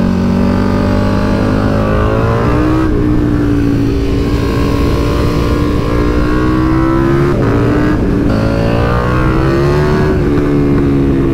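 KTM Super Duke 1290 R's V-twin engine pulling hard on a mountain pass. Its pitch climbs, steps down twice near the middle as it shifts, and climbs again.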